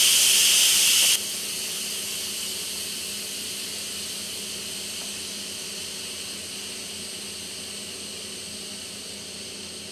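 Instant Pot pressure cooker's steam release valve venting on a quick release: a loud steam hiss that drops abruptly about a second in, then goes on more quietly and tapers off slowly as the pressure falls.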